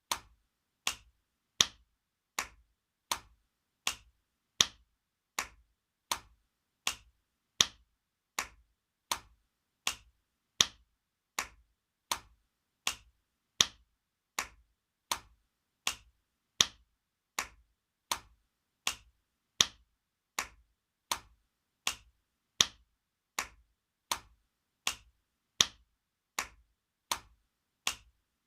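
Spanking sound effect: a steady run of sharp slaps, a little more than one a second, with every fourth slap louder than the three between.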